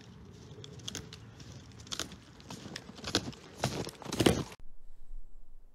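Boots crunching in packed snow, about one step every half second, getting louder as the walker comes up to the microphone, with the last step the loudest. The crunching cuts off suddenly about four and a half seconds in.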